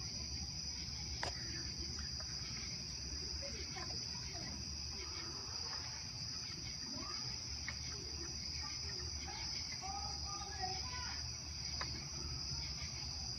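Night insect chorus, a steady high trill that does not change, with a few faint clicks.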